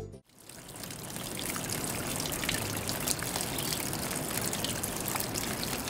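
Small decorative tabletop fountain: water trickling steadily from its spout into the basin below, with small splashes. It fades in just after the start.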